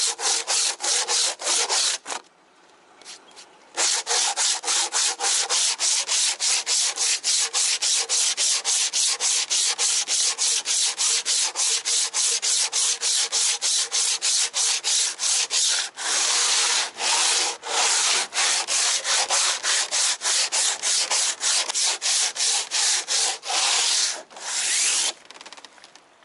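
Hand block of cloth-backed aluminium-oxide sandpaper scrubbed quickly back and forth over a hard, cured epoxy hull surface, about three strokes a second. There is a short pause about two seconds in and a brief break near the end.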